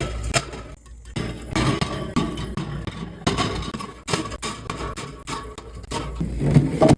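Drink cans and glass bottles being handled and set into a fridge, with irregular clinks and knocks.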